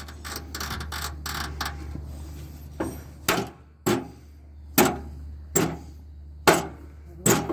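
Hand tools clinking and knocking irregularly against the mower's rusted steel linkage while a seized cotter pin is worked loose with pliers.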